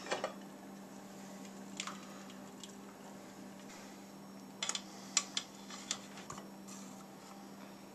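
Metal jar-lifter tongs clinking against glass canning jars and the rim of a pressure cooker pot: a couple of light clicks at the start, one more near two seconds, then a quick run of sharp clinks about four and a half to six seconds in, over a faint steady hum.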